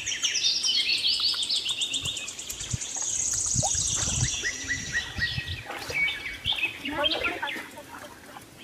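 Birds chirping and calling throughout, with a fast, high trill about three to four seconds in. Low thuds and sloshing come from wading in shallow pond water.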